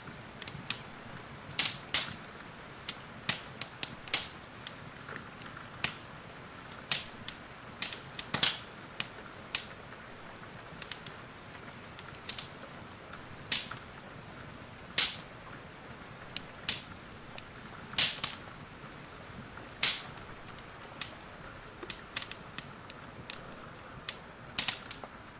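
Wood fire in a fireplace crackling, with sharp pops at irregular intervals, over a steady hiss of rain.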